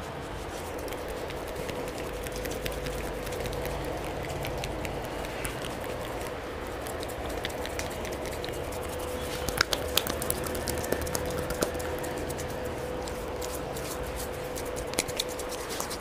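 Hands massaging a bearded face and jaw: soft rubbing with many small scattered clicks and a few sharper ones about ten seconds in and near the end, over a steady hum.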